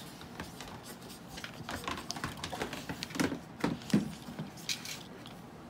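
Marker pen scratching across a plastic microchip package in a string of short, irregular strokes, with the package crinkling in hand.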